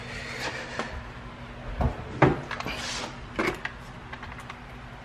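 A few knocks and clunks of things being handled and shifted, with light scraping between. The loudest clunk comes about two seconds in, and another follows over a second later.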